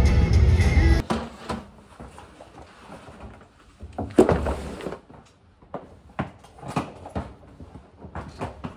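Music over car road noise that cuts off about a second in, followed by handling sounds as a bag and a box are set down on a wooden floor in a small room: scattered knocks and rustling, with one loud thud about four seconds in as a bag is dropped.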